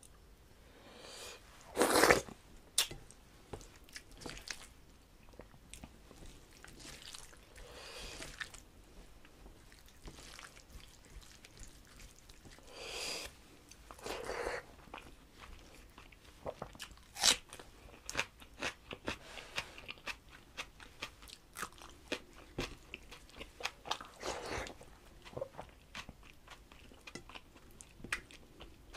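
A person eating close to the microphone: a loud crunchy bite about two seconds in, then further crunches and a run of chewing and wet mouth clicks as rice and curry are eaten by hand.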